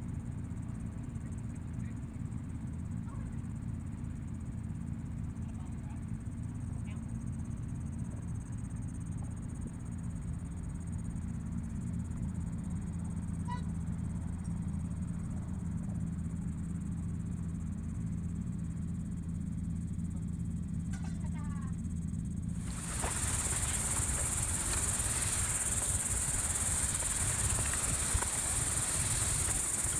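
Insects droning in a steady, high, even band over a low rumble. About three-quarters of the way through, the sound changes abruptly to a louder, denser insect chorus.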